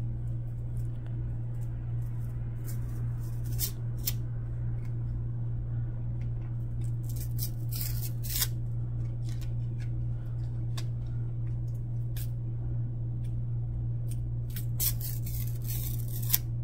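Glossy football trading cards being slid and peeled off a stack one at a time, the cards sticking together, giving short papery scrapes, the longest cluster near the end. A steady low hum sits underneath.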